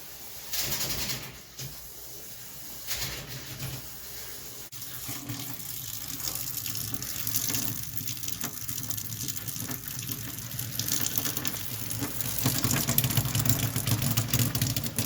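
Hot water running from a sink faucet, left open to let pressure off an electric water heater tank; the flow gets louder over the last few seconds.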